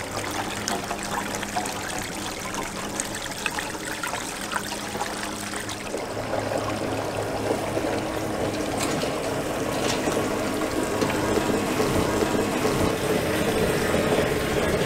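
Water from a garden hose running through PVC piping into plastic rain barrels, a steady rushing that grows louder about six seconds in.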